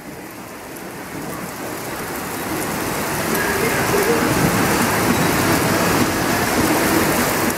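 Heavy rain pouring onto wet pavement, a steady hiss that grows gradually louder.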